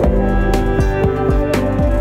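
Instrumental background music: sustained notes over a steady beat, with a sharp percussive hit about once a second.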